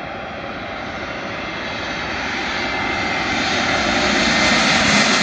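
Airbus A320neo jet airliner on final approach, its engines giving a steady rushing noise that grows louder as it nears, with a faint high steady whine above.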